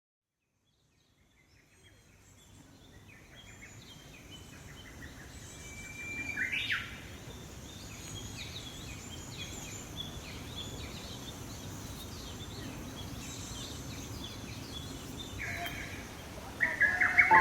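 Small songbirds chirping and singing over a steady outdoor background, fading in after a second and a half of silence, with one louder call about six seconds in. Piano notes come in near the end.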